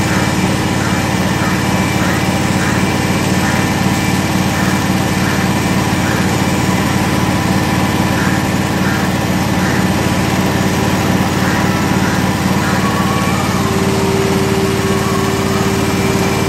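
Portable milking machine running while milking a cow: the vacuum pump's motor gives a steady hum, with a rhythmic pulsing over it for most of the time.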